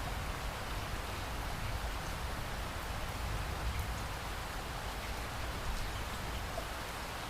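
Heavy rain pouring steadily: a constant hiss with faint scattered drop ticks and a low rumble underneath.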